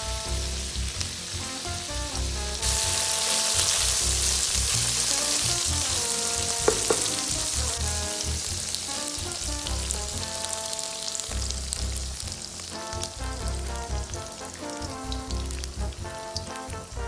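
Tofu cubes sizzling as they fry in hot oil in a wok. The sizzle grows louder about three seconds in and eases in the second half as beaten egg is poured over them. Background music plays throughout.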